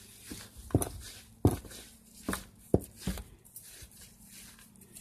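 A metal spoon stirring damp hardwood sawdust in a plastic tub, mixing in gypsum, with a faint rustle. About five sharp knocks stand out over the first three seconds or so.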